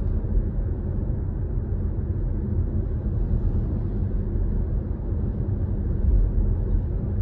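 Steady low rumble of road and tyre noise inside the cabin of a 2025 Toyota Corolla Cross hybrid cruising at about 60 km/h, its body fitted with full sound-deadening and insulation.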